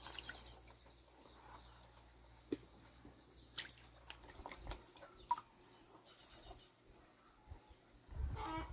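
Birds chirping in short high-pitched bursts, one right at the start and another about six seconds in, with scattered small clicks and knocks between them.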